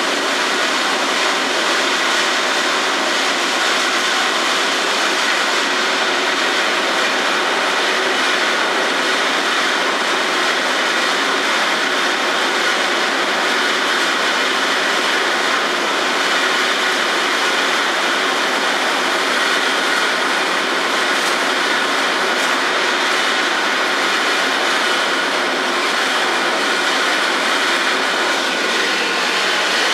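Steady mechanical din of a truck dumper tipping a loaded wood-chip trailer, with chips sliding out of the raised trailer into the receiving pit. It runs unbroken, with a faint high whine in it.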